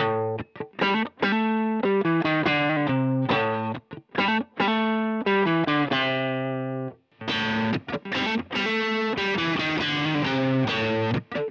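Electric guitar played with a pick through a Fender Deluxe Reverb tube amp driven by an Ibanez Tube Screamer overdrive pedal, a riff of overdriven chords and notes. After a short break about seven seconds in, the same amp is driven by a Carl Martin Plexitone distortion pedal, a denser, brighter distortion.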